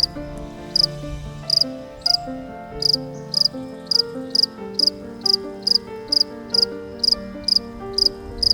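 Insect chirping: short, high-pitched double-pulsed chirps repeating evenly, about one and a half a second, over soft background music with held notes.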